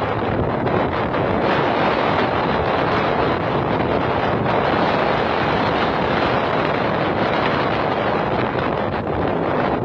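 Strong wind blowing hard across the microphone: a loud, steady rushing roar with no letup.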